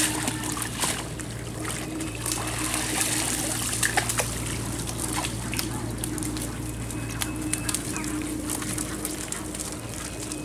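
Water trickling and splashing off a cast net as it is hauled out of a pond, with many small clicks and taps, over a steady low hum.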